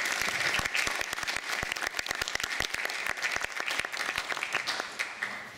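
Audience applauding: a dense patter of many hands clapping that thins out and dies away near the end.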